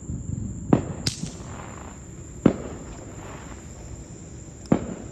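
Fireworks going off: four sharp bangs at uneven intervals of one to two seconds.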